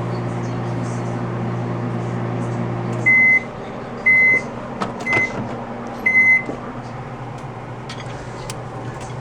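Microwave oven running with a steady hum that cuts off about three seconds in as the timer runs out, followed by four beeps about a second apart signalling the end of the heating cycle.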